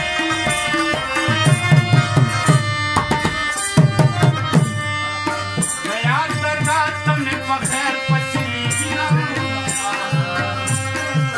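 Live Pashto folk music: a rabab plucked and a harmonium playing over a steady hand-drum beat, with a man singing.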